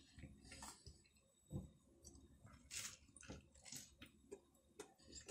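Faint chewing and biting of a pressed hot dog sandwich, short irregular mouth and bread sounds with a few small clicks.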